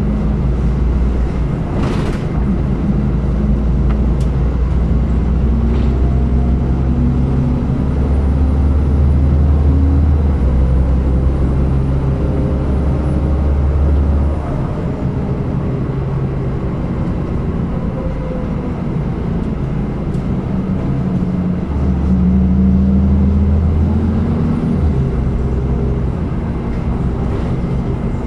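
City bus engine running under way, heard from inside at the back of the bus. Its low hum rises in pitch as it pulls harder, then eases off about halfway through, and does the same again near the end. A couple of short knocks or rattles come in the first few seconds.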